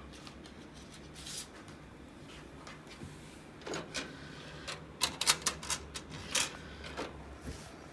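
Irregular sharp clicks and taps, with a quick run of them about five seconds in, over a faint low hum.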